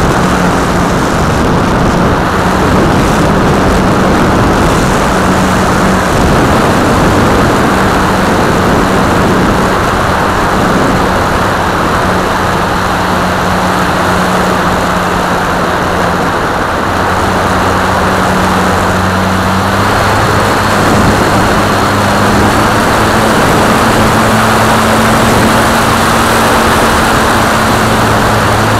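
Onboard sound of a Multiplex FunCub RC plane in flight: its electric motor and propeller give a steady drone under loud rushing wind on the camera's microphone. The propeller's pitch edges up a little about two-thirds of the way through.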